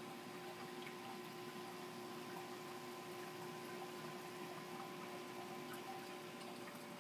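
Biocube 29 nano reef aquarium running: a faint, steady trickle of circulating water with a low, even hum from its equipment.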